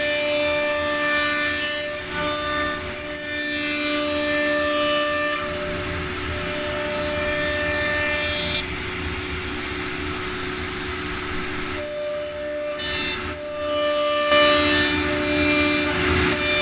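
CNC woodworking router's spindle whining steadily while it cuts, with a set of high tones that drop out and return every few seconds as the cut changes.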